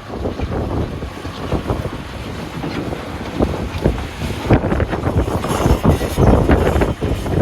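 Heavy wheel loader working, its engine running under wind buffeting on the microphone, with irregular knocks and clatter that get louder about halfway through.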